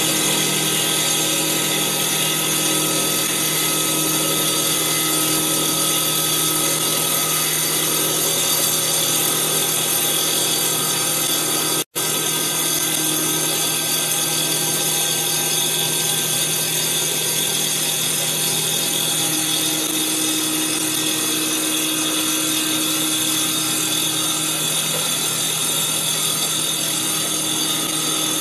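CNC wood lathe with a circular saw blade as its cutter, running at speed and cutting a spinning wooden baseball-bat blank during a 3 mm-deep pass. It makes a steady, loud whine over a hiss of wood being chipped away. The sound cuts out for an instant about twelve seconds in.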